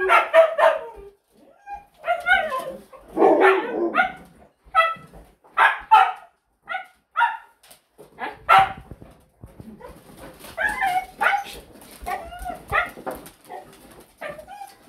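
A pack of huskies barking, yipping and whining together in bursts of short, pitched calls, then a denser run of calls in the second half. It is excited demand-barking at feeding time, with the food being dished out in front of them.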